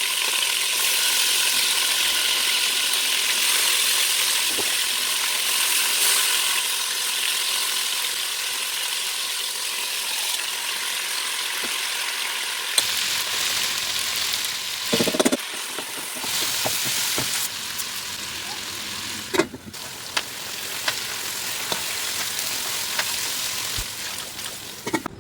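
Food frying in hot oil: a steady sizzling hiss, loudest in the first half. A few sharp knocks come in the second half.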